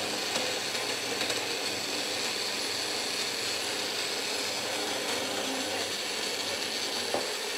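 Magic Bullet personal blender running steadily as its blade blends frozen banana pieces and chocolate milk into a smoothie. The even, unchanging sound is taken as the sign that the smoothie is ready.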